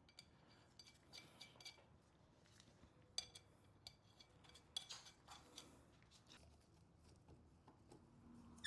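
Faint, scattered metallic clinks and taps, some ringing briefly, from a bolt and hand tools being handled on the engine's flywheel end.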